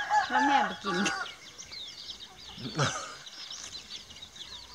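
Chickens calling, with a rooster crowing in the first second, over constant short chirps of small birds.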